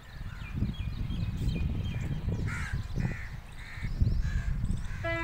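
Birds calling: three loud calls about half a second apart, among smaller chirps, over a steady low rumble. A locomotive horn starts to sound right at the end.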